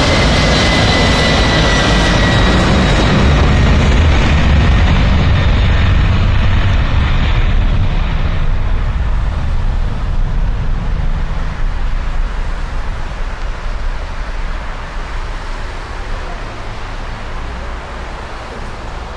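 Jet engines of a ULS Cargo Airbus A310 freighter at takeoff thrust during its takeoff roll: a loud rumble with a high whine over it. After about eight seconds the whine drops away and the sound grows duller and slowly fades as the aircraft moves off down the runway and lifts off.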